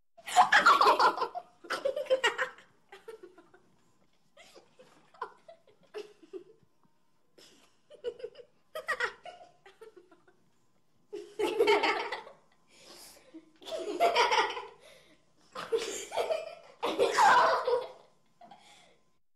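Children laughing and giggling in repeated bursts. The laughter goes quieter for a few seconds partway through, then comes back in loud fits of belly laughs.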